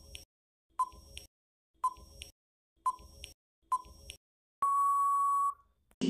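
Electronic countdown-timer sound effect: a run of short beeps about once a second, each followed by a fainter click, then one longer steady beep lasting about a second near the end, signalling that time is up.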